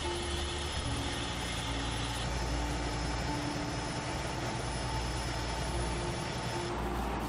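Fire engine's engine running steadily at a hydrant, a continuous low rumble with a faint steady hum above it.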